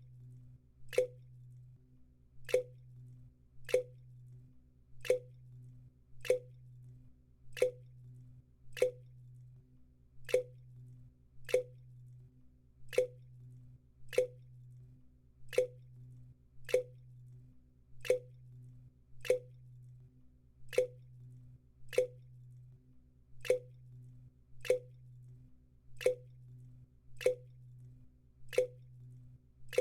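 Water drops from a leak falling one at a time into a bucket, each landing as a sharp plop with a short ring. The drips come very evenly, about one every second and a quarter, over a faint low hum.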